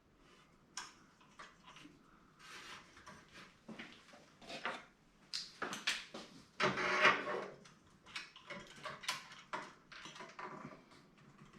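Hardware being handled and fitted by hand: irregular plastic and metal clicks, taps and rubbing as a CPU cooler with pre-applied thermal paste is set down onto the processor, with one longer, louder scraping noise about seven seconds in.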